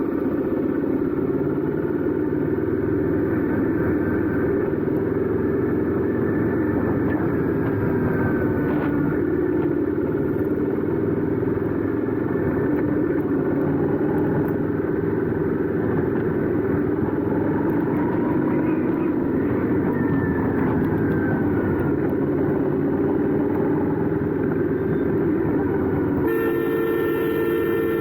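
Royal Enfield 650 parallel-twin motorcycle exhaust running at road speed, its note rising and falling gently as the throttle changes. A vehicle horn sounds near the end.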